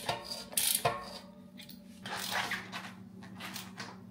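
A few irregular clicks and scrapes of bike parts being handled, loudest in the first second, over a steady low hum.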